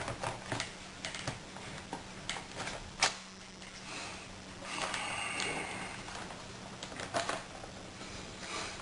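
Plastic clicks and rubbing as a battery pack is fitted into a Dell Inspiron 1545 laptop, with one sharp click about three seconds in and a short scraping rub a couple of seconds later.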